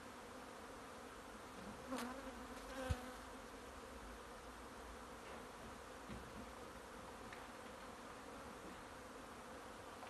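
A swarm of honey bees buzzing steadily as they fly around their cluster. A couple of brief knocks about two and three seconds in, the second the loudest.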